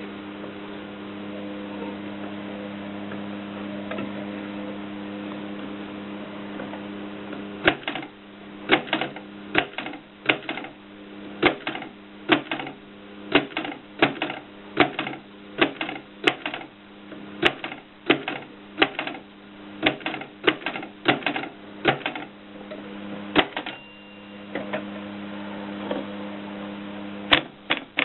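AEG Mignon 4 index typewriter typing: sharp single clacks at an uneven one or two a second, starting about eight seconds in, breaking off briefly near the end, then resuming. A steady hum runs underneath.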